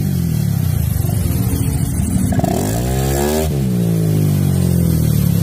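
Honda Click scooter's single-cylinder four-stroke engine running through a 4S1M Velocity aftermarket exhaust, idling, then revved once about two and a half seconds in, the pitch rising and falling back to idle.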